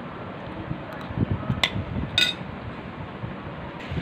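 Two short clinks of a spoon against a plate, about half a second apart, the second ringing briefly, over low background noise.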